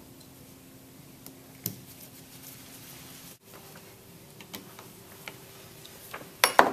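Scattered small clicks and taps of metal pump parts being handled and fitted on a bench, over a faint steady hum, with a louder clatter of knocks near the end.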